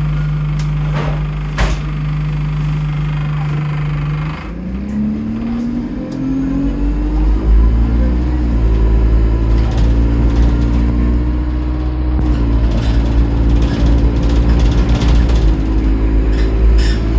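Bus SE64's engine running steadily, then from about four seconds in the bus pulls away and the pitch rises over several seconds before settling into a steady drone, with small pitch shifts later on. The uploader describes the bus's turbo as leaking.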